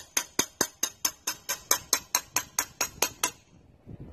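Rapid hammer blows on metal, about five a second, each ringing briefly, stopping about three and a half seconds in: a hammer working loose a brake drum whose shoes are stuck to it.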